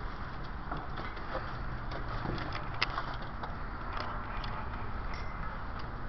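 Steady low rumble with scattered light taps and clicks from footsteps and a handheld camera being carried through a concrete tunnel; a sharp click comes about three seconds in.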